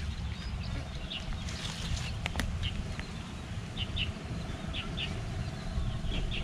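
Outdoor ambience: scattered short bird chirps over a steady low rumble, with a faint steady hum in the second half and a couple of light clicks.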